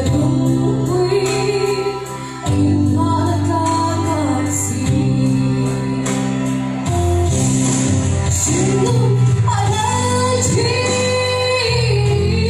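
Two girls singing a Mizo gospel song as a duet, their voices gliding and wavering over a recorded backing track of sustained chords that change every few seconds.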